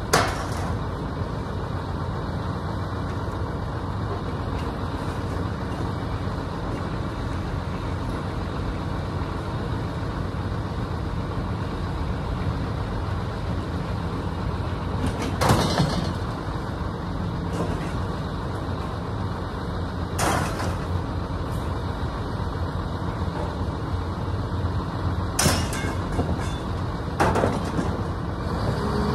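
A motor vehicle running with a steady low rumble, with a few sharp knocks or rattles spread through it.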